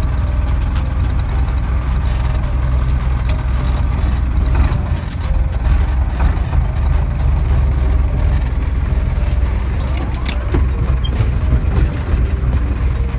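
Engine of a wheeled log-grapple loader tractor working close by: a steady low rumble, with a few short clanks.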